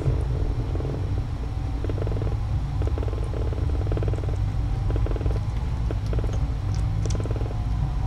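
Domestic cat purring in steady breath-by-breath cycles, with a low hum underneath and a few faint clicks near the end.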